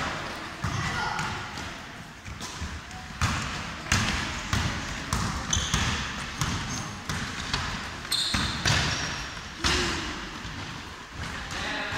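Basketball bouncing and sneakered feet running on a wooden gym floor, a string of uneven knocks that echo in the hall, with children's voices calling out.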